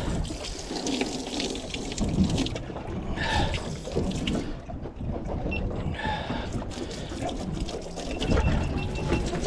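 Water being poured and splashed onto a small boat's deck in an irregular trickling stream, rinsing away the blood of a freshly bled fish.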